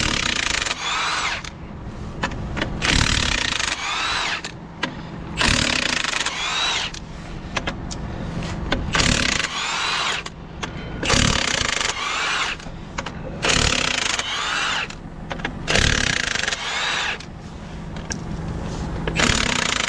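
Power tool running in repeated bursts of a second or two, spinning out the 21 mm bolts of a dustcart's rear axle half shaft, with a gliding whine as each bolt runs.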